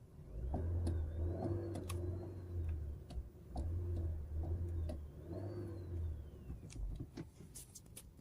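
Honda Civic sedan with manual gearbox: a faint, high extraneous whistle that rises and then falls in pitch, twice, over a low engine drone that swells and eases, with scattered light clicks.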